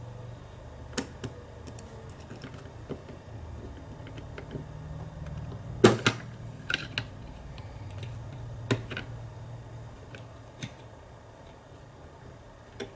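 Scattered small metal clicks and taps of a tool working at a padlock's retaining clip, the sharpest pair about six seconds in and another near nine seconds, over a faint low hum.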